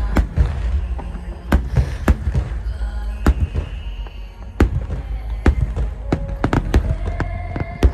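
Aerial fireworks bursting: a quick, irregular series of sharp bangs, well over a dozen, over a constant low rumble.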